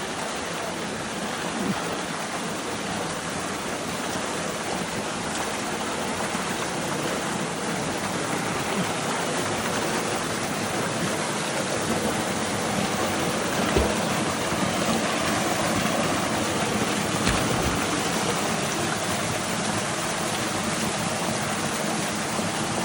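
Waterfall rushing: a steady, even roar of falling and cascading water. Two brief low thumps come over it about fourteen and seventeen seconds in.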